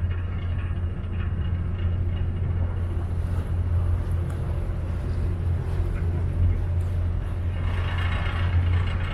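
Vaporetto water bus's diesel engine running steadily underway, a low drone with hiss from wind and water over it.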